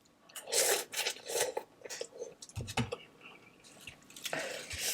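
Person chewing a mouthful of noodles close to the microphone, in short separate bursts about a second apart.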